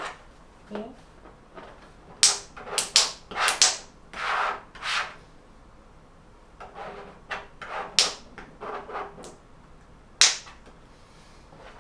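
Short rustling swishes of adhesive vinyl sheet film being handled and smoothed, with a few sharp clicks, the loudest about eight and ten seconds in.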